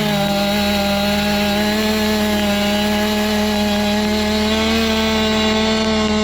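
Two-stroke chainsaw held at full throttle, its engine note steady and high.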